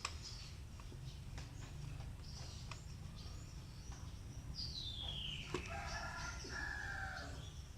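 Quiet background hum with a few faint clicks; about two-thirds through, a bird calls in the background with a falling whistle followed by a few short held notes.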